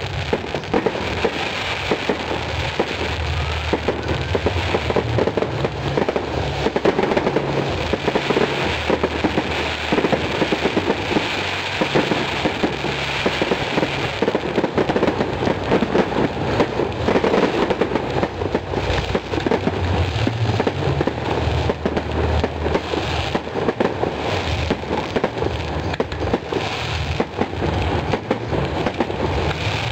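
Fireworks firing in rapid succession: a dense, continuous crackle of pops and bangs with a low rumble underneath.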